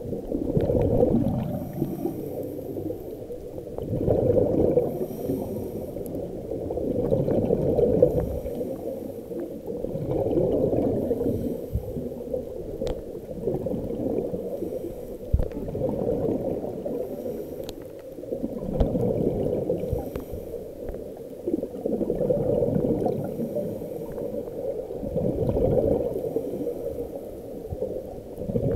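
Scuba diver breathing through a regulator underwater: exhaled bubbles gurgling and rushing in slow cycles, swelling about every three to four seconds, muffled and low.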